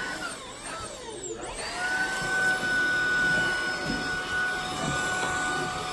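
Tineco stick vacuum running with a steady motor whine. About a second in, its pitch drops sharply and then climbs back to the same steady pitch.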